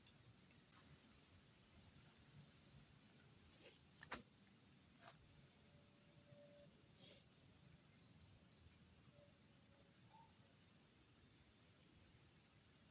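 An insect chirping in short high trills that repeat every two to three seconds over a faint night background. There is one sharp click about four seconds in.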